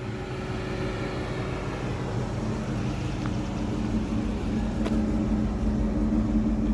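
Supercharged 4.6-litre DOHC V8 of a 1999 Mustang SVT Cobra idling steadily, growing gradually louder.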